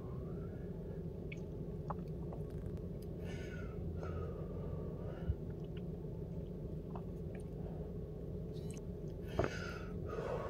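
A couple of slow, breathy exhalations after a hit of vapour, with small mouth clicks, over a steady low hum inside a car.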